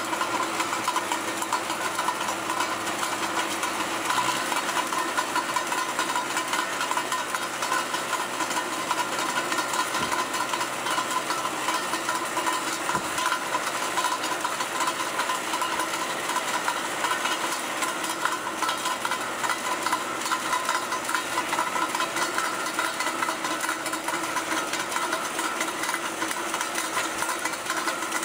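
MTZ-82.1 tractor's diesel engine running under load while its mounted rotary ice-milling cutter grinds through road ice. A steady, dense noise with a constant hiss over the engine.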